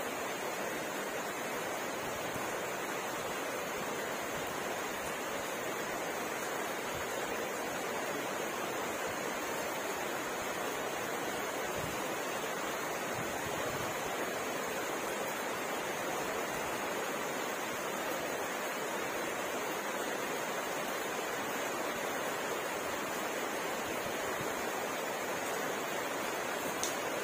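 Rain falling steadily, an even hiss with no change in strength, and a single small click just before the end.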